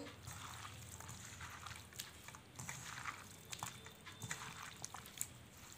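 Hand mixing raw anchovies with wet ground-coconut paste in a stainless steel pan: faint, soft squelching with a few light clicks.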